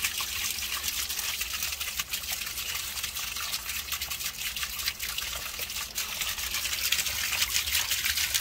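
Water gushing steadily out of the end of a PVC air-conditioner condensate drain line and splashing into a puddle on the ground, as the line is flushed through with garden-hose pressure, carrying out dirty debris.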